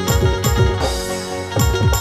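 Background music with rapid drum strokes over sustained melody tones; the drumming thins briefly in the middle under a brighter wash.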